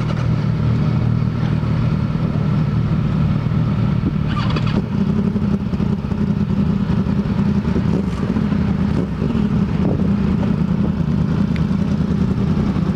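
Several sport motorcycles idling together in a steady low rumble, with a short sharper burst about four seconds in.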